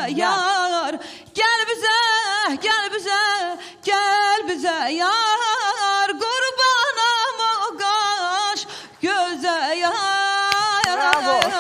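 A woman singing solo into a microphone without accompaniment, her voice wavering through quick ornamental turns between short breaths. She holds a long steady note near the end.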